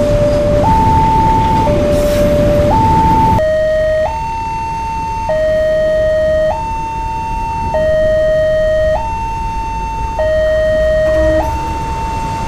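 Electronic railway level-crossing warning siren alternating steadily between a low and a high tone, each held about a second. A steady rumble underlies it for the first few seconds, then drops away abruptly.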